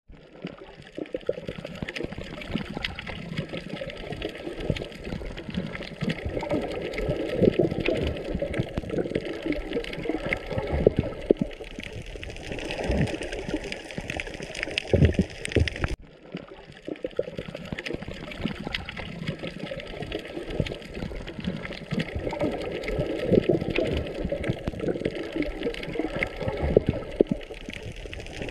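Underwater ambience: water bubbling and gurgling, with many small clicks throughout. The sound cuts and starts over about halfway through, like a looped track.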